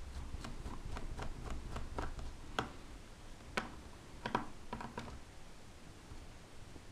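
Screwdriver backing out a screw from the hard drive cover on the plastic underside of a Dell Inspiron 1501 laptop. There is a run of light, irregular clicks and ticks as the screw turns and is lifted out, thinning out after about five seconds.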